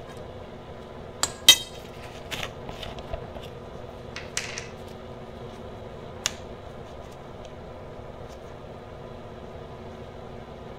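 A metal spoon clinking and knocking against a glass spice jar and ceramic bowl as ground spice is scooped out: a handful of sharp clinks, the loudest about a second and a half in, then only a steady faint hum.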